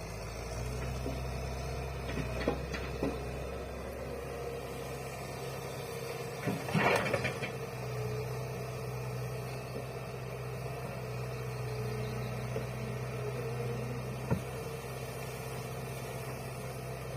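Hitachi hydraulic excavator's diesel engine running with a steady low hum, with a short louder burst of noise about seven seconds in and a few sharp knocks.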